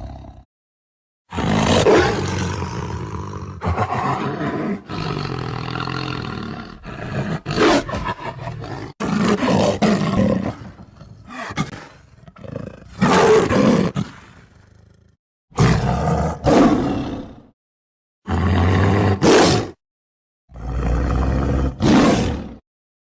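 Tiger roars and growls, about eight or nine separate loud calls cut one after another, several of them separated by short gaps of dead silence.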